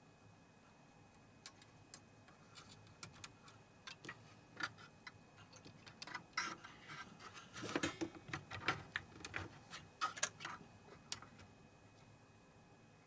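Scattered light clicks and taps of small parts and tools being handled, coming more thickly between about six and ten seconds in.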